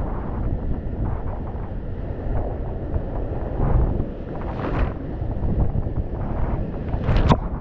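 Whitewater of a glacier-fed alpine river in flood rushing around a kayak, with wind buffeting the action-camera microphone. Sharper splashes stand out about halfway through and again near the end.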